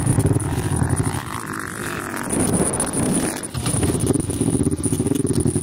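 Off-road vehicle engine running and revving close by, its note rising and falling, with a brief drop about three and a half seconds in. A steady high-pitched whine runs under it.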